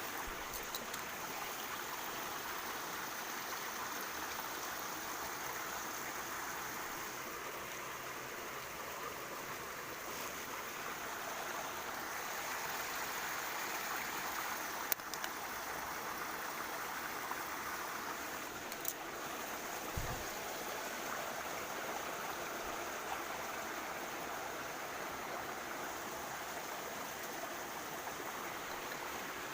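Small mountain stream rushing steadily at the foot of a waterfall, an even, unbroken wash of water. A couple of faint clicks come in the middle, and a brief low thump about two-thirds of the way through.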